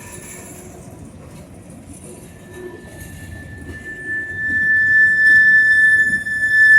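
Freight train rolling, with a low rumble and the squeal of steel wheels on the rail: a single steady high-pitched squeal that sets in about two seconds in and becomes loud from about four seconds.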